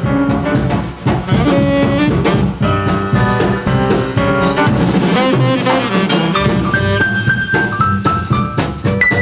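Background instrumental jazz music with brass or saxophone melody over a drum kit beat.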